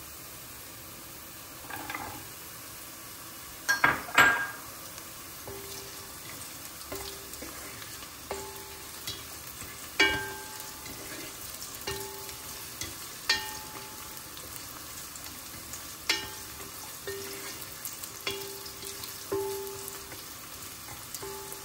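Onion, garlic and diced carrot sizzling gently in olive oil in a pot while a wooden spatula stirs them, knocking and scraping against the pot every second or two. There is a louder clatter about four seconds in.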